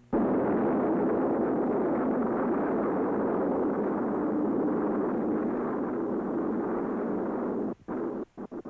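A sounding rocket's motor firing at launch: a loud, rough, steady rush of noise that starts suddenly, then breaks up into short choppy bits and cuts out near the end.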